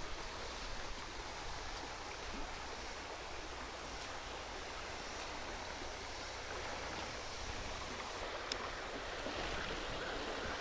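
Creek water running steadily over rocks, with one faint click about eight seconds in.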